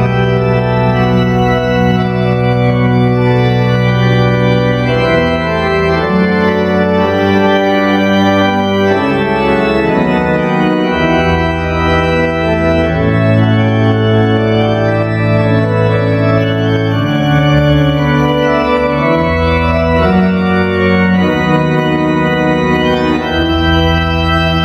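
Three-manual, 40-rank Schantz pipe organ playing full held chords over deep pedal bass notes, the harmony changing every few seconds.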